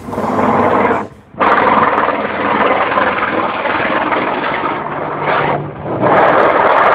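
Mi-26 heavy helicopter flying low overhead with a water bucket slung beneath it: loud, rough rotor and turbine noise, recorded through a phone's microphone. The noise cuts out briefly about a second in.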